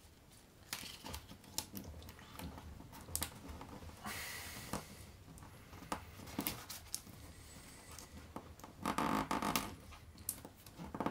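Handling and folding of a Foldscope's card sample stage: light crinkles, taps and rubbing of card against card and against the tabletop, with a louder rub about nine seconds in.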